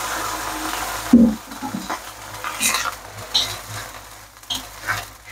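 Vegetables sizzling with a little water in a hot stainless-steel wok, then a loud knock of the metal wok ladle about a second in, followed by repeated scraping and clattering of the ladle against the wok as the vegetables are stir-fried.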